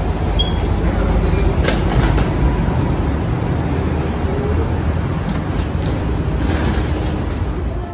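Loud, steady low rumble of airport ground machinery heard from inside a jet bridge at an airliner's door, with a few sharp clicks and knocks scattered through it.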